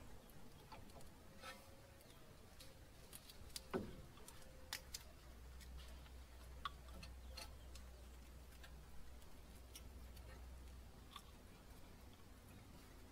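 Faint, scattered clicks and light knocks as a Mitsubishi Outlander's front brake caliper is handled and pressed into place over the disc, the clearest about four seconds in, over a low steady hum.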